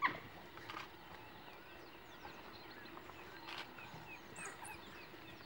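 African wild dogs at a kill: one short, sharp, high yelp at the very start, then faint, quick, high chirps in a run of about a second and a half around the middle, with a few soft ticks.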